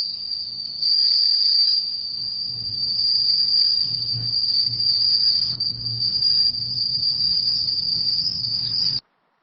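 Night forest ambience dominated by a steady, high-pitched insect trill, with soft low pulses repeating roughly every half second to second underneath; it all cuts off suddenly near the end.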